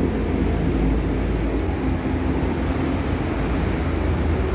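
Steady low rumble of road traffic, even throughout, with no distinct events standing out.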